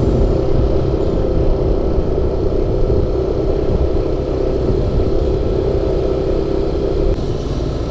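Yamaha Aerox 155 scooter's single-cylinder engine running at a steady cruising speed, with wind buffeting the microphone. The steady engine tone eases off near the end.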